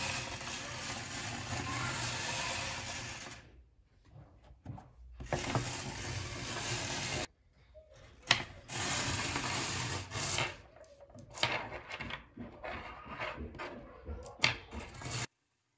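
Hands handling a bare copper wire coil and a dry cell battery with magnets on a wooden tabletop: rubbing and scraping with sharp clicks, two of them louder, about eight and fourteen seconds in. Before that, for the first three seconds or so, a steady hiss.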